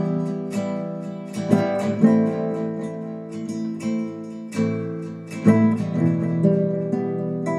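Acoustic guitar strumming chords, each strum left to ring before the next.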